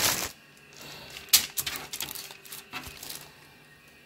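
Slices of bread being laid on a sheet of baking paper in an oven tray: paper rustling and soft taps, with one sharp click a little over a second in.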